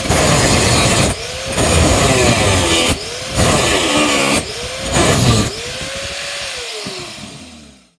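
Electric angle grinder's spinning disc grinding into a steel bar in four passes. Each time the disc lifts off the metal, the motor's whine rises as it speeds up. Near the end the grinder is switched off and its whine falls in pitch and fades out as it winds down.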